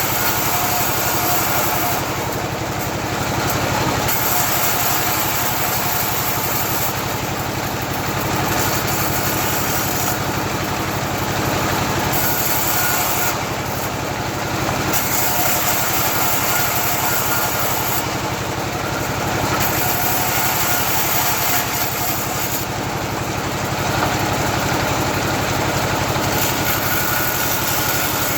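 Bandsaw sawmill running while sawing eucalyptus: a steady machine hum, with the higher-pitched part of the sound shifting every few seconds.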